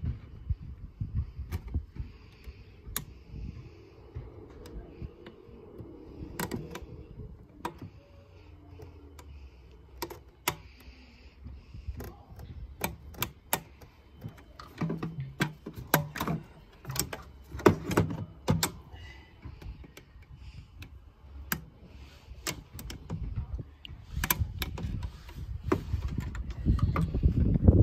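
Irregular clicks and knocks of hand work on a car's coolant reservoir: the new plastic tank, its hoses and fittings being handled and fitted back in the engine bay.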